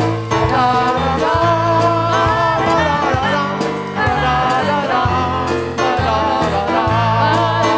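Worship music played by a band: steady bass notes under a wavering melody line.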